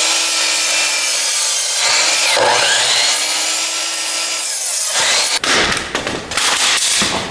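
DeWalt sliding compound miter saw cutting through lumber, two long cuts with a short break near two seconds. From about five seconds in, the sound turns choppier and uneven.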